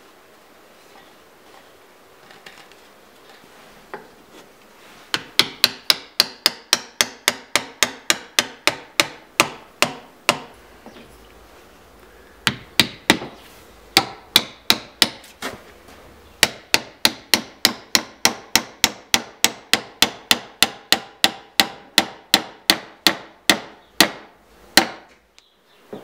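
Hammer blows on wood, about three a second, in long runs with short pauses about ten and fifteen seconds in: dowels being driven into a spalted beech board.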